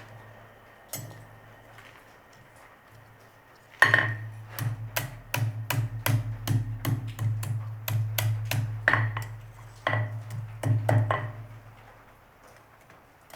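Blacksmith's hammer striking metal on an anvil, each blow with a short metallic ring: a single blow, then after a pause a quick run of blows, about three a second, thinning out to a few spaced blows near the end. A steady low hum runs underneath.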